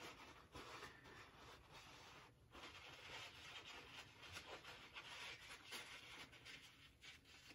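Faint, irregular rubbing of a cloth in short strokes, with a brief pause about two seconds in.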